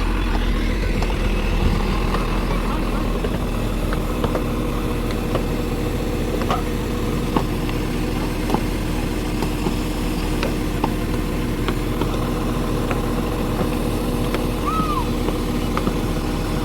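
An engine running steadily at idle, with a constant low hum, and a few faint clicks and knocks scattered through it.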